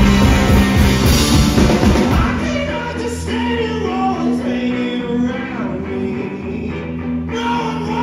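Live rock band kicking into a song with a sudden full-band start of drums, electric bass and electric guitar; a lead vocal comes in about three seconds in.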